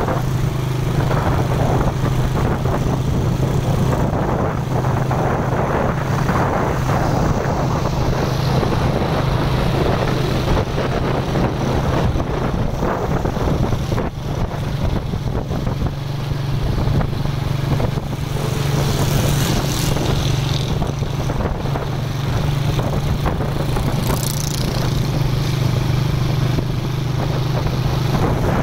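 Steady engine drone and road noise of a moving vehicle, with a constant low hum underneath.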